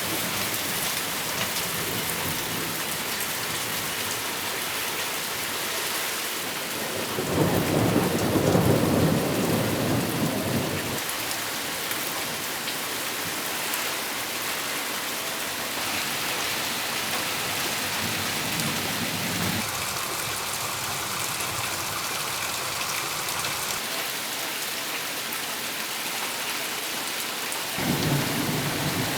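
Steady rain, an even hiss throughout, with a louder low rumble swelling for about four seconds starting about seven seconds in, and another near the end.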